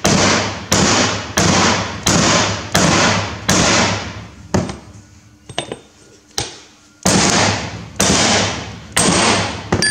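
Club hammer striking a steel disc to drive a new rear axle bearing into its bore in a tractor axle housing: very loud, ringing metal-on-metal blows, about one and a half a second. There is a run of about six blows, a short break with a few lighter knocks, then about five more.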